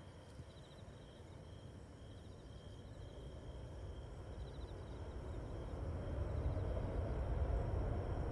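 Jet airliner engine rumble, growing steadily louder over the last few seconds, with insects chirping faintly throughout.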